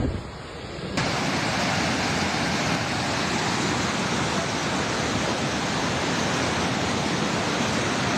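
A low, wind-blown rumble, then an abrupt cut about a second in to a steady, even rush of water, such as floodwater or a heavy downpour, that holds until near the end.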